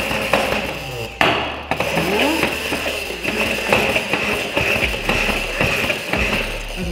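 Immersion blender running in a tall, narrow beaker, a steady high whine with rapid clicking and rattling from the blade head against the container, getting louder about a second in. It is emulsifying soy milk and oil as they thicken into a vegan mayonnaise.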